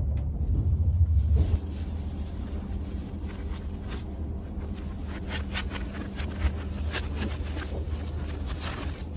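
Cabin running noise of a Shinkansen bullet train in motion: a steady low rumble. It is loud for the first second and a half, then drops to a quieter hum with a faint steady tone. Light clicks are heard in the second half.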